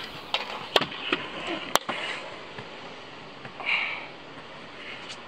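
Stunt scooter on concrete: a few sharp clacks and knocks of the deck and wheels striking a ledge and the ground, the loudest just under two seconds in. A short breathy hiss follows a little before four seconds.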